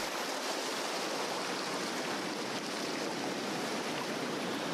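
Sea surf breaking and washing over coastal rocks: a steady rushing noise of churning water.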